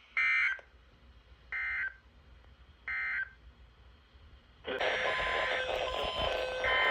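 Three short bursts of Emergency Alert System digital data tones (the buzzy SAME end-of-message code), each well under half a second and about a second and a half apart, marking the end of the alert. About four and a half seconds in, a louder, harsher alert tone starts and carries on to the end.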